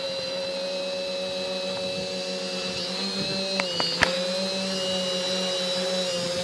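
Quadcopter's electric motors and propellers hovering, a steady hum with a high whine above it, with a few sharp clicks around the middle.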